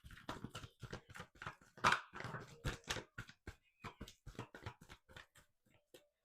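A deck of oracle cards being shuffled by hand: a quick, irregular run of card slaps and clicks.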